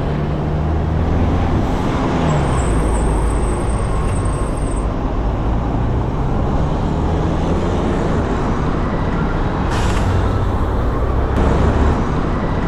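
Road traffic heard from a moving bicycle: the engines of buses and cars run close by over a steady road noise. A thin high squeal sounds for a few seconds, starting about two and a half seconds in.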